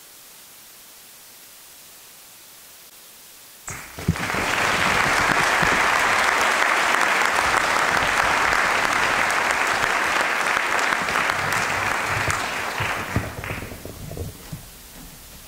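Audience applauding: after a few seconds of faint hiss, the clapping starts suddenly about four seconds in, holds steady, and dies away around thirteen seconds in.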